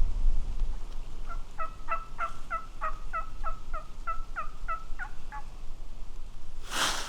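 A series of about fourteen turkey yelps at roughly three a second, each note dropping in pitch. A burst of noise follows near the end.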